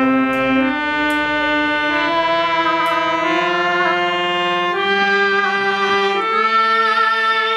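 Harmonium playing held reed notes that move from one pitch to the next in steps. A girl's singing voice joins in, wavering on a held note near the end.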